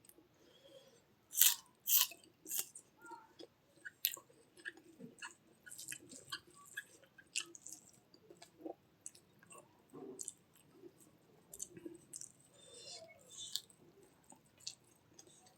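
Close-up eating: a person chewing and biting food with the mouth near the microphone, a few sharp loud clicks in the first four seconds, then a steady run of smaller chewing clicks and wet mouth sounds.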